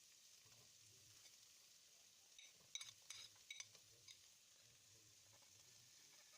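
Faint sizzle of food frying in a pan, with a handful of sharp clinks of a utensil against the pan about halfway through.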